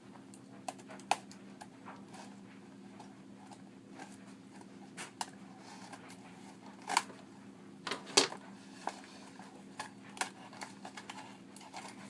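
An Erector construction-set box being opened and handled by hand: scattered clicks, taps and rustles, with the sharpest knocks around seven and eight seconds in, over a low steady hum.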